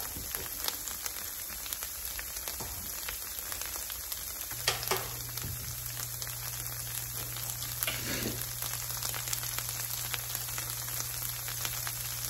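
Shredded cheddar cheese sizzling and crackling in a hot nonstick frying pan, a steady hiss with small pops as the cheese bubbles but is not yet crisp. A low steady hum comes in about four and a half seconds in.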